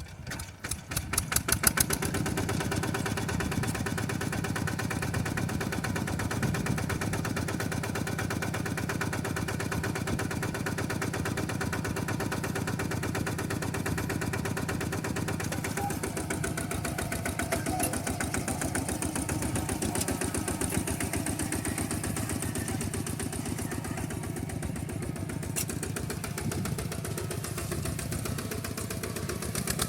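Two-wheel walking tractor's engine: its firing pulses grow louder over the first couple of seconds, then it runs steadily.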